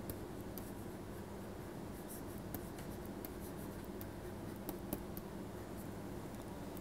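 Stylus tapping and scratching lightly on a tablet surface while words are handwritten, heard as scattered faint ticks over a steady low hum.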